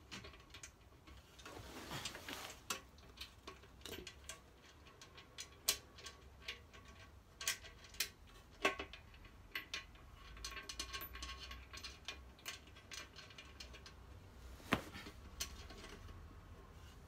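Scattered light clicks and metallic taps from hand tools and bolts as the rear mounting bolts of a motorcycle sump guard are fitted and turned in, with a few sharper clicks now and then.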